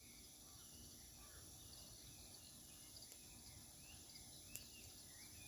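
Near silence: faint outdoor ambience with scattered soft chirps and a single small click about four and a half seconds in.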